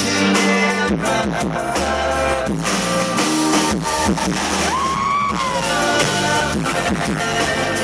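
Live rock band playing: singing over electric guitars, bass and drums. About five seconds in, a sliding tone rises and then falls away.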